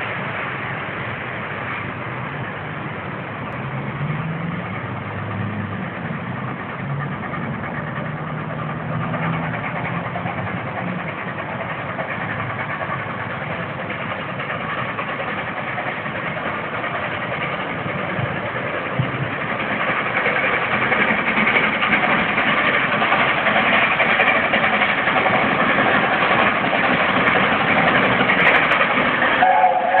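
LNER A4 Pacific steam locomotive working hard as it picks up speed from a station with the regulator opened up. It is a steady, heavy noise that grows louder from about two-thirds of the way in as the engine comes closer.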